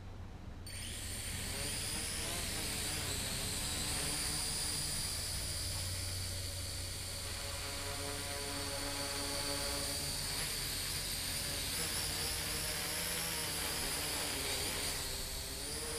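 Small quadcopter's electric motors and propellers whining, starting suddenly about a second in as it spins up and lifts off from the hand. The high whine wavers in pitch as the throttle changes in flight, and shifts again near the end as the drone is caught back on the hand.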